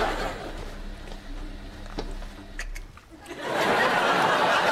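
Studio audience laughing, fading to a low murmur, then swelling into a loud burst of laughter about three and a half seconds in.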